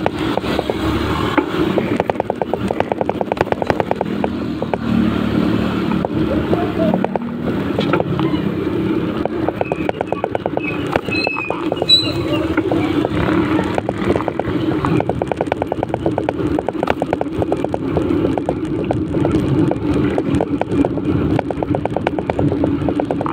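Motorcycle engine running steadily under way, its rapid even firing pulses carrying over road noise, with a sharp click about twelve seconds in.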